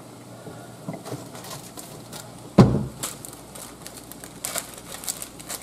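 A single loud thump about two and a half seconds in, then a plastic zip-top bag crinkling as it is handled and opened.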